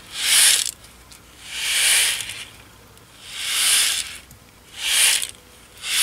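Clear glass seed beads sliding and pattering down inside a shaker card as it is tilted back and forth: five swishes of beads, each swelling and fading, about every second and a half, the last two shorter.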